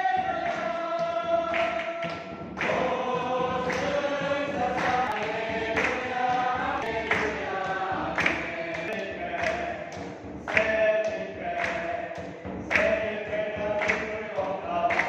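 A church congregation sings a hymn together, with hands clapping in time to the beat.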